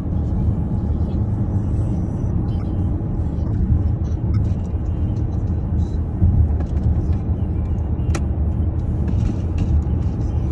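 Steady low road rumble of a car driving at speed, heard from inside the cabin, with one brief click about eight seconds in.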